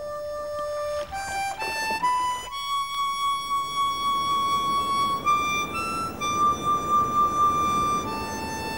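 Background music: a slow solo melody on a wind instrument, long held notes stepping up and down one at a time.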